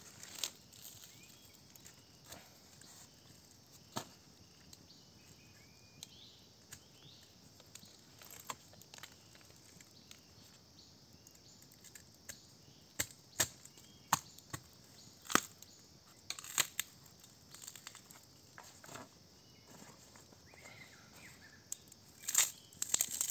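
Knife cutting and cracking open a bamboo cooking tube: scattered sharp clicks and snaps, with a quick cluster of them near the end. Insects keep up a faint steady high hum, with a few short bird chirps.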